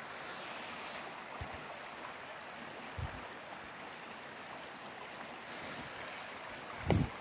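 Creek water running over rocks, a steady even rush. A few low knocks break through it, the loudest near the end.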